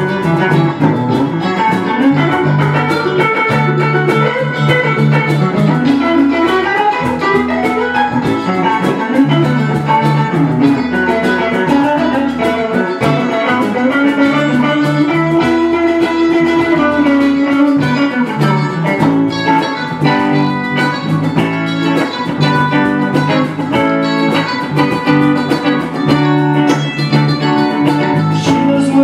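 Live band playing an instrumental passage with no singing: electric guitar over a repeating bass line, with a cajón keeping the beat.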